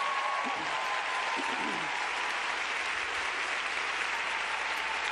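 Audience applauding steadily, with a faint voice or two in the first couple of seconds.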